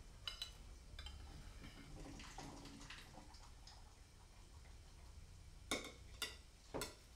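Faint, scattered clicks and light taps, then three sharper clicks about half a second apart near the end.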